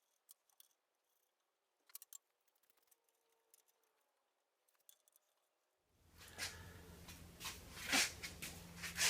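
Handling noises: a few faint, scattered clicks, then from about six seconds in a louder run of knocks and clatter over a steady low hum.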